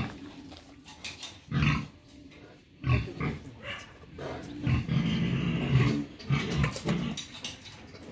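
Alabai dog growling in low, rough bursts: short ones, then a longer drawn-out growl in the middle, then a few more short ones.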